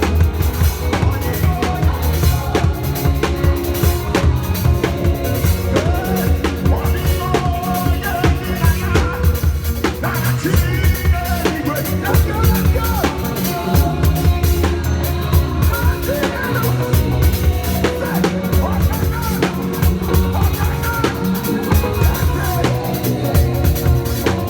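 Live church praise band playing an upbeat number: a drum kit drives a busy beat of kick, snare and rimshots under a bass line and keyboard.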